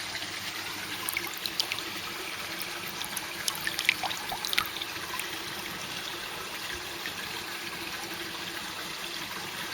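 Water from a pond waterfall blade spilling steadily into a koi pond, a continuous trickling splash with a few sharper droplet splashes in the first half.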